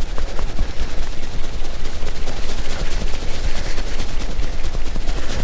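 Wind buffeting the camera's microphone: a loud, steady rumbling noise full of fine crackles, with no letup.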